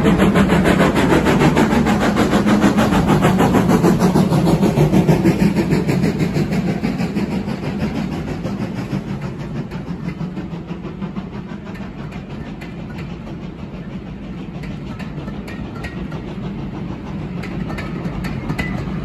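Steam locomotive climbing the 1-in-36 gradient with a train, its exhaust beats loud and rapid, fading after about six seconds as it draws away. Then the rumble of the passing coaches with a light clicking of wheels over the rail joints, growing a little louder near the end.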